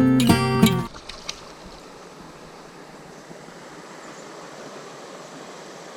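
Strummed acoustic guitar music cuts off about a second in, leaving the steady rush of a mountain creek's flowing water.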